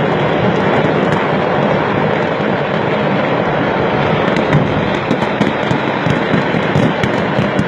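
Fireworks going off in a dense, unbroken barrage of crackling pops, with sharper cracks standing out more often in the second half.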